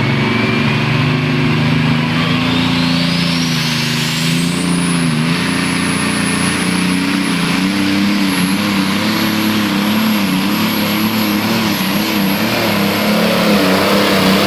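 John Deere pulling tractor's engine running at full power under the load of the sled, its deep note wavering. Over it a turbocharger whine climbs steadily in pitch over the first few seconds, then holds at a very high pitch.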